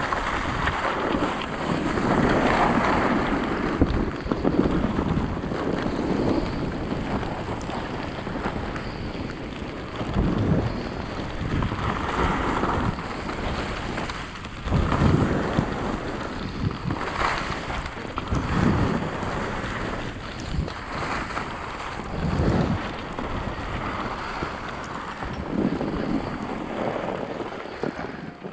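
Wind rushing over the microphone during a fast run down a ski slope, with the hiss and scrape of edges carving packed snow. It swells in surges every two or three seconds as the rider turns.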